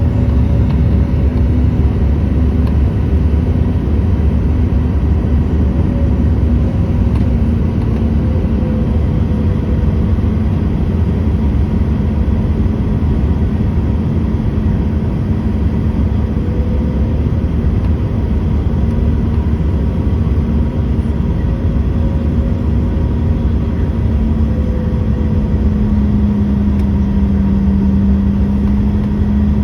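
Steady cabin noise of a CRJ200 regional jet in flight: a low rumble of engines and airflow with a steady hum that drops slightly in pitch and grows stronger near the end, as engine power changes on the approach.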